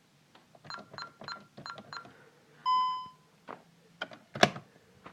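Five quick button presses on an alarm system keypad, each with a short high beep, followed by one longer, lower beep. A few clicks and a sharp knock come near the end, the knock being the loudest sound.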